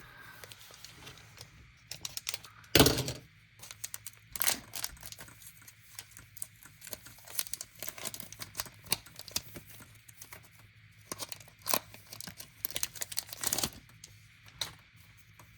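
A Pokémon trading card booster pack's foil wrapper being torn open and crinkled, in irregular rustles and rips, the loudest sharp rip about three seconds in.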